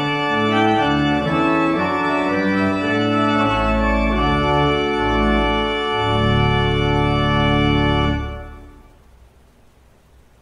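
Organ music: sustained chords over a moving bass line, ending on a long held chord that dies away about eight seconds in.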